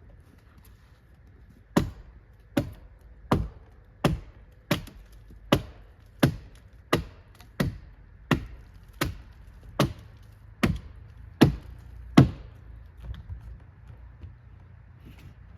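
Axe chopping into wood: about fifteen sharp, evenly paced strikes, roughly three every two seconds, which stop a few seconds before the end.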